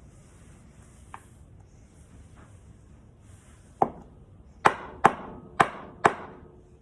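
Five sharp knocks on the pressure-washer rotating nozzle being taken apart, with hard parts struck together: one, then four more in quick succession about half a second apart. A faint click comes about a second in.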